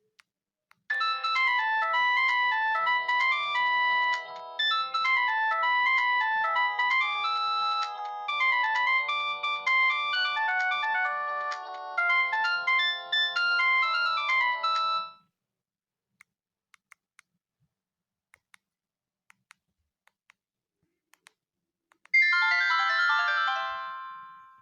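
iTel it5615 phone playing a polyphonic ringtone melody through its speaker for about fourteen seconds, then cutting off abruptly. A few faint clicks follow, and near the end another short tune starts and fades away.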